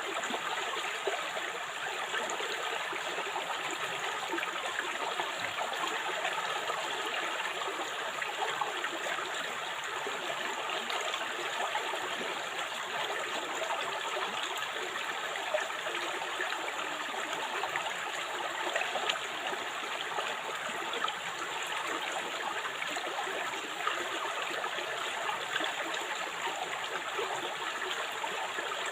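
River water flowing and babbling over stones, a steady rushing with small gurgles.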